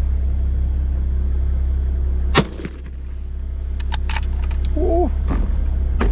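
A single rifle shot about two and a half seconds in, over the steady hum of the idling four-wheel drive. A few sharp clicks follow.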